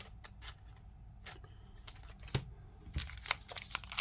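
Scattered light clicks and rustles of cards and packaging being handled, then, about three seconds in, the foil wrapper of a Pokémon booster pack starting to crinkle and tear open.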